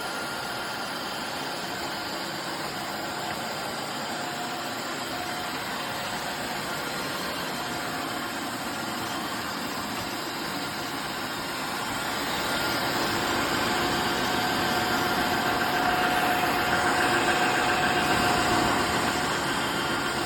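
Tineco Floor One S9 Artist wet-dry floor cleaner's motor running with a steady whir and a faint whine, growing louder about twelve seconds in.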